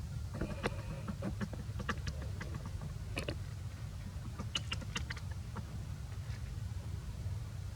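Young monkey at rest making soft sounds: a scatter of small clicks and rustles with a brief faint high squeak about half a second in and a few short squeaky notes near the middle, over a steady low rumble.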